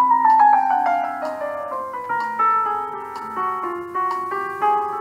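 Electronic keyboard with a piano sound playing a slow, gentle instrumental passage: a melody over held chords, new notes coming about every half second.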